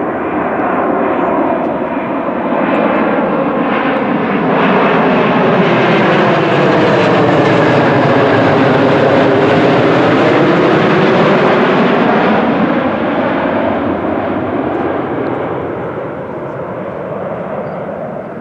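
An airliner passing low overhead: engine noise that swells over several seconds, peaks about halfway through, then fades away.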